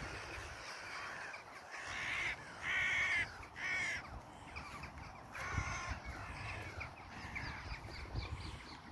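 Crows cawing: four harsh caws about two to six seconds in, followed by fainter, quicker bird calls.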